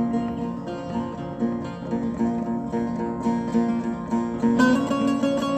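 Buzuq, a long-necked Kurdish lute, played with quick repeated plucked notes. About four and a half seconds in it gets louder and moves up to higher notes.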